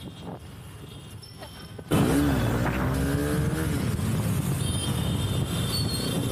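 Bajaj Pulsar AS200 motorcycle riding in traffic, with its engine and road noise. About two seconds in the sound gets suddenly much louder, and the engine note falls as the bike slows.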